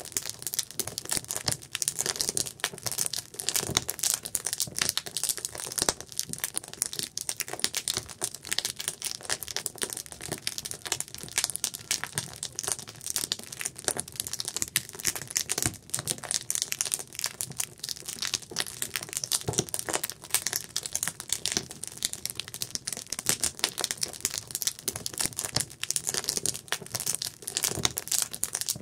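Wood campfire burning with steady, dense crackling: many small irregular pops and snaps over a hiss of flames.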